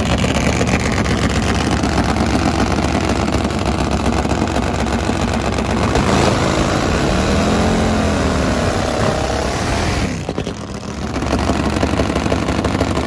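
Nitro-burning Top Fuel drag motorcycle engines running loud, their pitch rising and falling as they are revved about seven to nine seconds in. The sound dips briefly about ten seconds in, then comes back at full volume.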